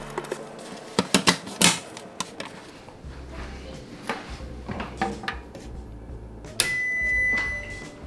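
Sharp clicks and light knocks from handling, a few of them about a second in. Near the end comes a steady, high-pitched electronic beep lasting just over a second, as power is restored to the kitchen circuit.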